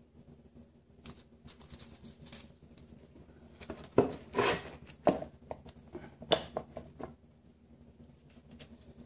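A ratchet strap being fitted and cinched: the webbing rustles and the metal ratchet buckle clicks and clacks, loudest about four seconds in, followed by a quick run of short ratchet clicks.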